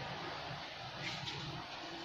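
Tomato sauce simmering in a frying pan over a gas burner: a faint, steady hiss with a low hum underneath.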